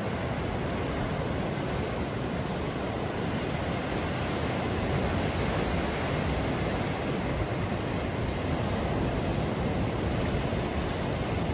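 Pacific Ocean surf washing steadily onto the shore, swelling a little in the middle.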